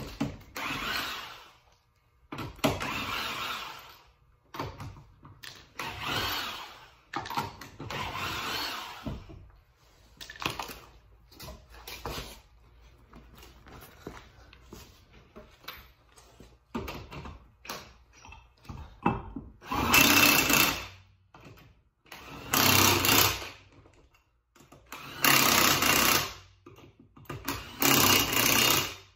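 Mastercraft impact wrench running in short rattling bursts of a second or two, about eight in all and loudest in the last four, spinning lug nuts off and on for a wheel changeover, with fainter clinks of nuts and tools between bursts.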